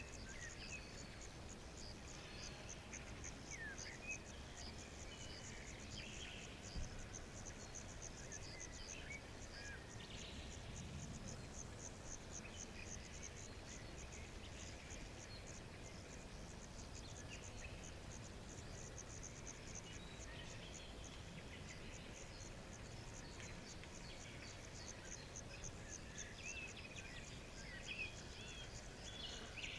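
Forest ambience: an insect, likely a cricket, chirping in a fast, steady, high-pitched pulse, with scattered short bird chirps, more of them near the start and near the end, over a low, even background hush.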